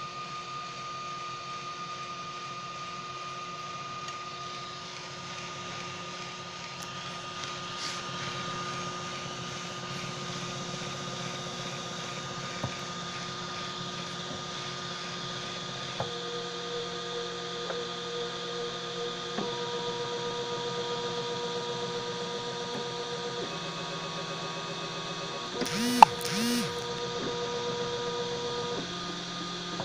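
Homemade 3D printer running a print: the stepper motors whine in steady tones over a constant hiss, the pitch jumping to new notes every few seconds as the print head changes moves. A sharp click with a brief rattle stands out a few seconds before the end.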